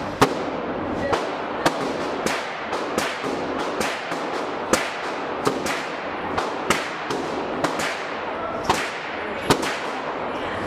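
Gunshots echoing in an indoor shooting range, about twenty irregular shots at roughly two a second over a steady hiss. Some shots are much louder than others.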